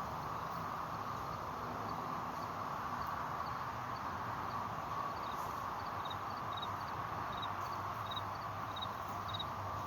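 Steady outdoor background noise with a faint, high chirp repeating about twice a second, often in pairs.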